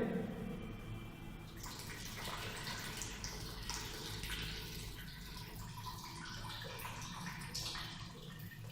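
Warm salt water from a neti pot trickling and splashing out of the other nostril during jal neti nasal rinsing, an uneven stream that starts about one and a half seconds in.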